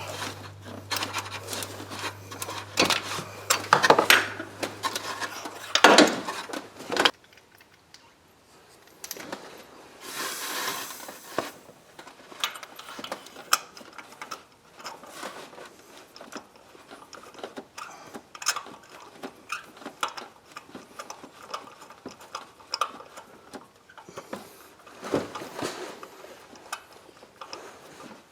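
Socket ratchet clicking in short runs and metal tools clinking while spark plugs are worked out and threaded into a V6's cylinder head. A low hum runs under the first several seconds and stops, and a short hiss comes a little after ten seconds.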